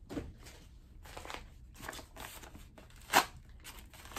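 A yellow padded mailer envelope being slit and torn open with a knife: crinkling and tearing paper, with one sharp, loud crunch about three seconds in.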